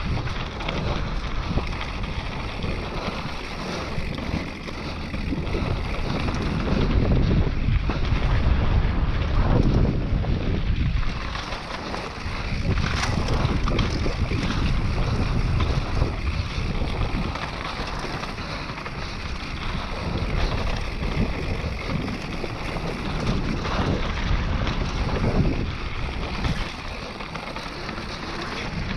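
Wind rushing over the microphone while a mountain bike rides down a dirt enduro trail, with tyre noise, swelling and easing as the speed changes, and a brief knock about halfway through.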